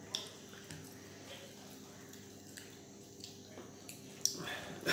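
Hands mixing rice and curry on banana leaves and people chewing: soft wet squishes with scattered small clicks and lip smacks over a faint steady hum. A louder, rougher sound comes in near the end.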